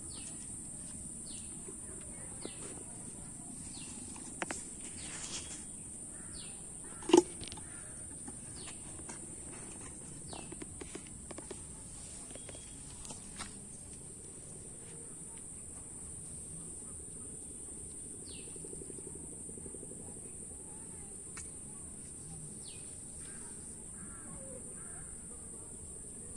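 Rural outdoor ambience: a steady high-pitched insect drone with scattered short bird chirps, and one brief loud sound about seven seconds in.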